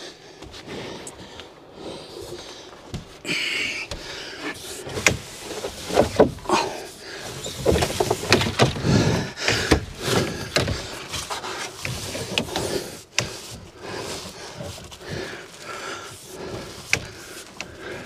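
Electrical conduit being forced through a tight attic run, scraping and rubbing with irregular knocks and clicks, busiest in the middle stretch.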